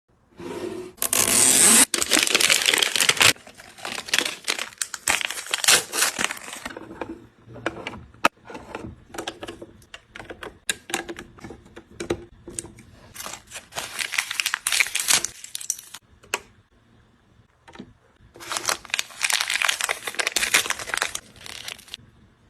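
Plastic packaging crinkling and tearing in several loud handling spells, with small clicks and taps of plastic pieces in between, as toy packaging is unwrapped by hand.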